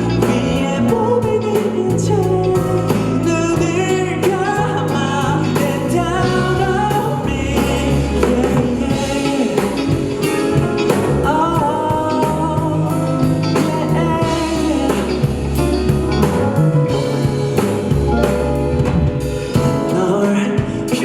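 K-pop song with a sung vocal line over a steady bass and drum beat.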